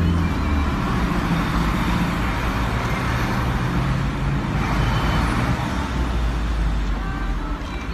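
Car engine and road noise heard from inside the cabin, a steady low hum under an even rushing noise as the car moves forward.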